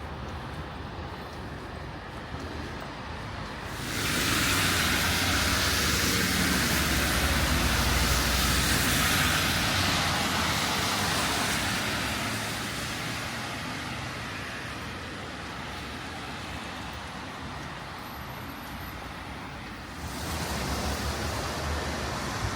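Traffic on a wet city street in the rain: a steady hiss and low rumble. About four seconds in, a much louder hiss of tyres on the wet road starts suddenly and slowly fades. It rises sharply again near the end.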